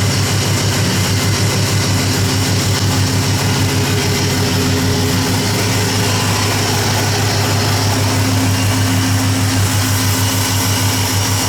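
Ford F-150 engine idling steadily, with a noise from the belt-driven accessories that the owner takes for a pulley or a bearing; the video's tags put it down to the belt tensioner.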